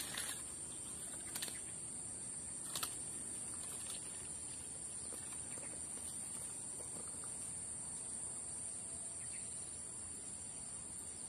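Steady high-pitched insect chorus over faint outdoor background, with a few short, faint clicks in the first three seconds.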